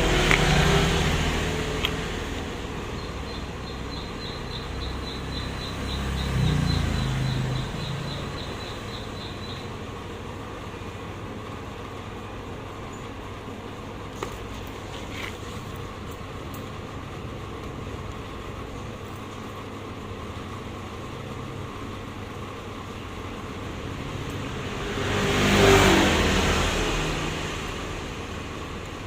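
Passing road traffic over a steady background hum. An engine rises in pitch about six seconds in, and a vehicle swells past and fades away near the end, the loudest moment.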